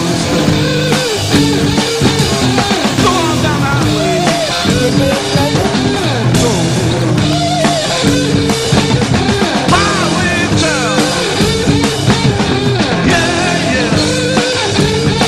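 Rock music with distorted electric guitar and drum kit, a bending lead guitar line over it.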